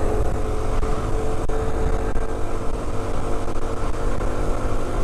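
Honda CT125's single-cylinder four-stroke engine running at a steady pitch under way on the road, heard from the rider's seat, with a heavy rumble of wind on the microphone.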